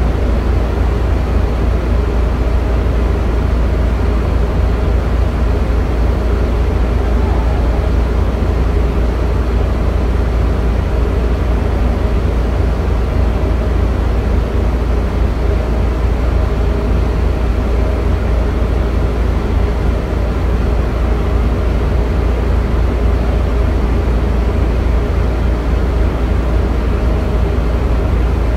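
Steady, loud machinery drone with a deep rumble and a few faint steady tones: heavy deck machinery running as the derrick crane's boom is hoisted.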